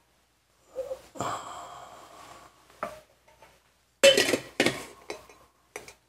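A porcelain soup spoon clinking lightly against a small ceramic bowl as soup is stirred and sipped, with a louder short noise about four seconds in.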